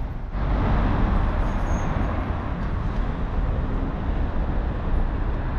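Steady city street noise: a continuous rumble of road traffic.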